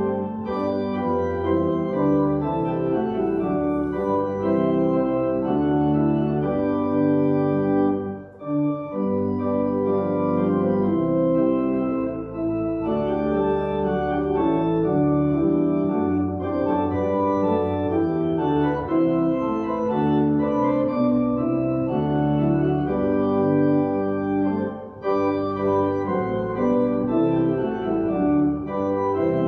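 Organ playing sustained chords that change every second or so, with brief breaks between phrases about eight seconds in and again near 25 seconds.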